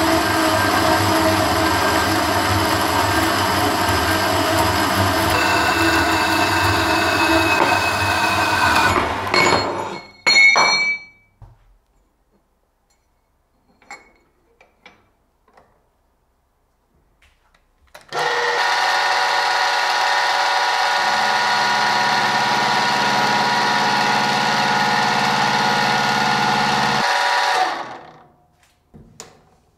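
Metal-cutting band saw running through a steel flat bar for about ten seconds, ending in a sharp clank. After a few light handling clicks, an Emco milling machine runs with a steady whine for about nine seconds, its end mill cutting the steel, then stops.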